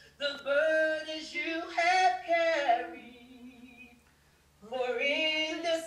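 A woman singing solo without accompaniment, holding long notes in two phrases with a pause of about a second and a half between them.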